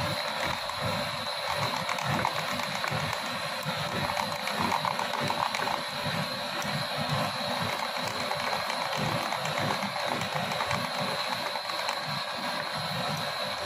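A small machine running steadily, with a constant high whine over a dense rattling noise and an uneven low rumble.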